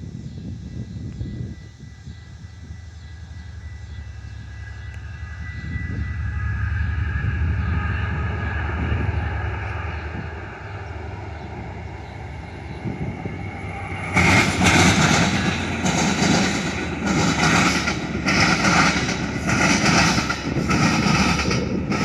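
Metra commuter train approaching with a rumble and a faint high whine that grow louder. About two-thirds of the way in it passes close, and a loud, rhythmic clatter comes roughly once a second as the cars' wheels roll by.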